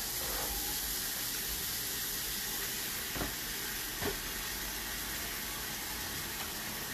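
A steady hiss of background noise, with two faint soft knocks about three and four seconds in.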